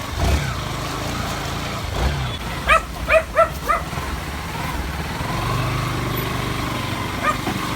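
A dog barks four times in quick succession about three seconds in, and once more, fainter, near the end. Under it runs the steady hum of a motor vehicle's engine.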